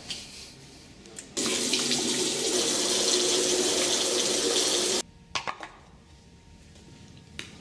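Bathroom sink tap running hard into the basin for about three and a half seconds, starting and stopping abruptly, followed by a few light clicks and knocks.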